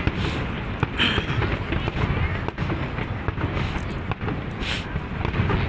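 Aerial firework shells bursting in quick succession over a display: a continuous run of bangs over a deep rumble, with no let-up.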